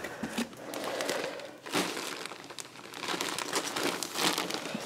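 Plastic packaging crinkling and rustling, with small irregular crackles and clicks, as hands rummage in a cardboard box of packed yarn skeins.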